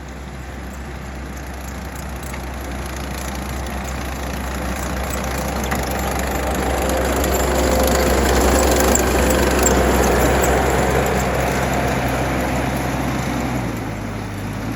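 Diesel engine of a tracked earthmoving machine working on the driveway, a steady low hum with a rougher noise over it that grows louder as the machine comes close, peaks about eight to ten seconds in, then eases off.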